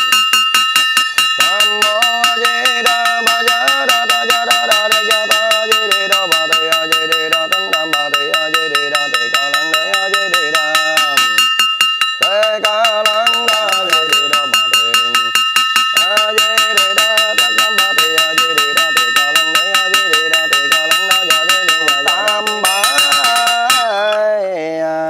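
Buddhist monk chanting a sutra in long sung phrases while rapidly striking a small handheld brass bell, several strikes a second, its ringing tone held under the voice. Near the end the bell strikes stop and the chanting falls away.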